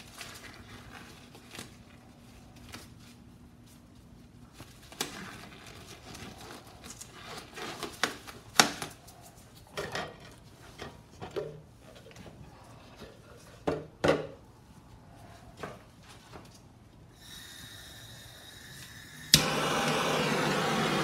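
Knocks and rustling of things being handled on a worktable. Near the end a handheld gas torch gives a faint hiss of gas, then a sharp click as it lights, and its flame hisses loudly and steadily as it is passed over wet resin to pop air bubbles.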